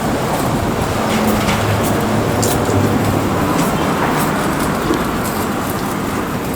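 Street traffic: a steady rumble of passing motor vehicles, with a low engine drone running under it.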